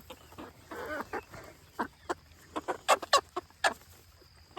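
Chickens clucking: a string of short, sharp clucks, with one longer call about a second in.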